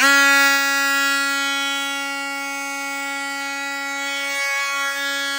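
Porter Cable 20V cordless tool's electric motor running at a steady speed with a steady whine, powered by a Black & Decker 20V battery notched to fit it.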